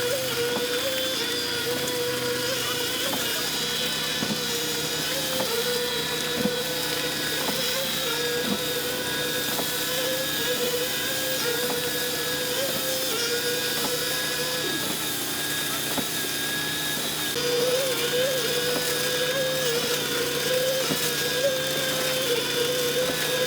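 Machinery running steadily, a continuous hum with a higher whine over it and a few faint knocks.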